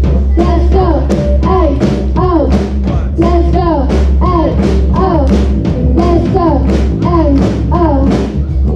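Junior rock band playing live: drum kit, bass and guitar driving a steady fast punk-rock beat, with voices singing.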